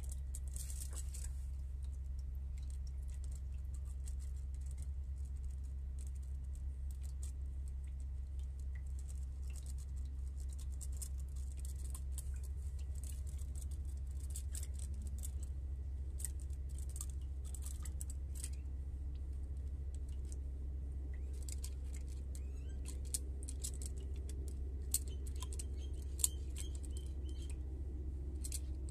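Oily steel pistons of an axial-piston hydraulic pump sliding and clicking as they are fitted into the bores of the cylinder block: many small metallic clicks and taps, with a few sharper ticks near the end. A steady low hum runs underneath.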